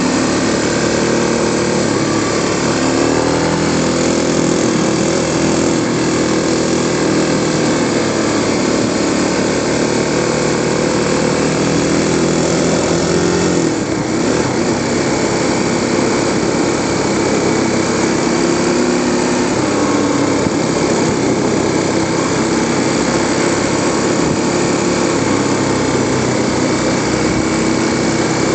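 Kawasaki KLX250S single-cylinder four-stroke engine running on the move, heard from the handlebars, its engine speed rising and falling, with a clear change about fourteen seconds in.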